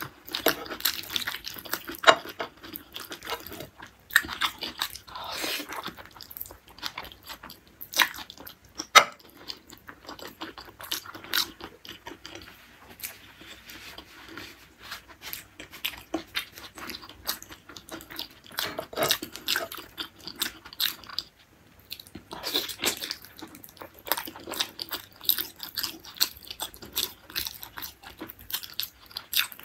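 Close-miked mouth sounds of a person eating beef tendon curry (gulai tunjang) by hand: steady chewing and biting with frequent irregular crunches and smacks.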